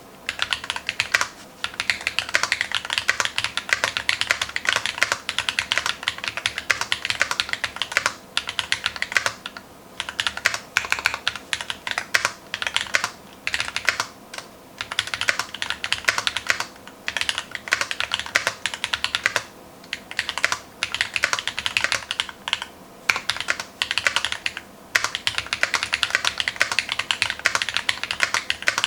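Fast typing on a custom mechanical keyboard with lubed Glorious Holy Panda tactile switches, foam-dampened case and lubed stabilizers: dense runs of keystrokes broken by short pauses.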